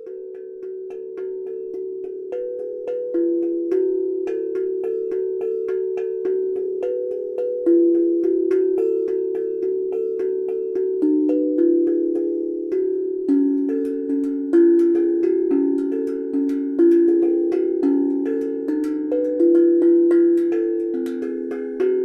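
Homemade steel tongue drum (tank drum) played with mallets: a continuous flow of overlapping ringing notes, several strikes a second, each with a sharp attack and a long bell-like decay. The sound swells in over the first few seconds, and about halfway through the notes move lower and come with brighter overtones.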